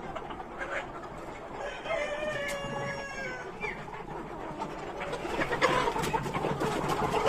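Sonali chickens calling. A rooster crows once, a long call starting a little under two seconds in. The flock's clucking grows denser and busier over the last couple of seconds.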